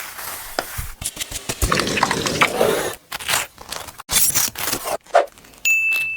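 Kitchen food-prep sounds: utensils scraping and stirring in a pan with some sizzling and knocks. A steady high electronic beep starts near the end.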